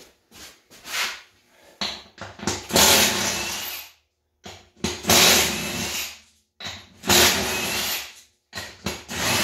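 Cordless power tool running ATV lug nuts in four bursts of a second or so each, starting and stopping abruptly, after a few short knocks.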